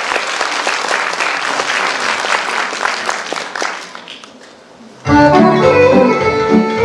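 Audience applauding, dying away after about four seconds. About five seconds in, instrumental music starts abruptly: the introduction to a Romanian folk song.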